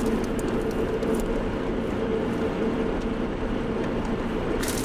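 Steady engine and road noise inside a moving car's cabin, with a constant hum, while the car's transmission is stuck in fourth gear.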